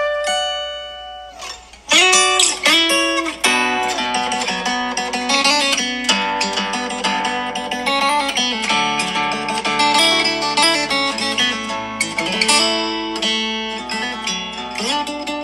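Background music played on plucked acoustic guitar, with a brief drop in level just before two seconds in.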